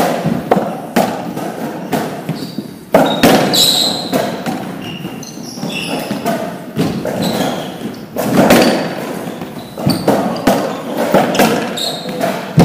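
Racquetball rally in an enclosed court: the ball repeatedly struck by racquets and smacking off the walls at an irregular pace, each hit echoing, with short high squeaks from the players' shoes between hits.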